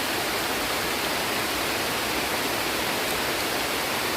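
Heavy tropical rain falling steadily, an even, unbroken hiss.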